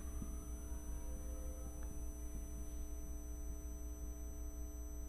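Steady low electrical hum with several faint, constant high-pitched tones: the background noise of the recording setup. A faint tone rises in pitch during the first second.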